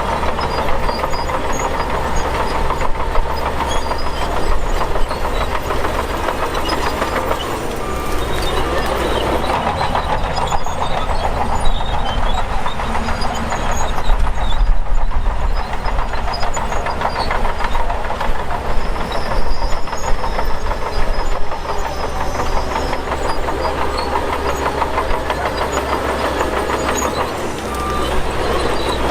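Shantui DH17 bulldozer running with a steady diesel drone, its steel tracks clanking and rattling continuously as it moves.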